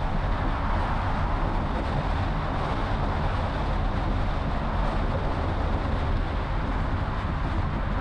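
Honda CR-V 1.5 driving along a city street: a steady deep rumble of tyres and engine with road hiss over it.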